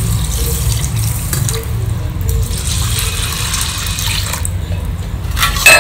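Water pouring in a steady splashing stream from a steel pot onto washed rice and then urad dal in steel bowls. Just before the end comes one sharp, loud clank of steel vessels.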